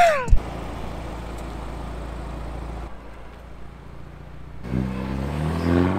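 A car engine revving up as the car accelerates, rising steadily in pitch over the last second or so, after a few seconds of a steady rushing background noise.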